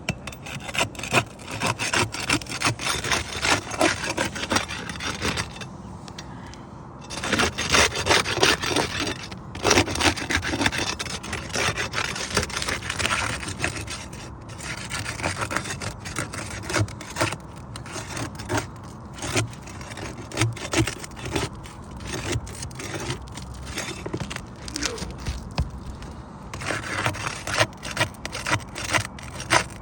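A hand tool scraping and rubbing under and against roof shingles as a damaged shingle is worked loose, with many short clicks and knocks.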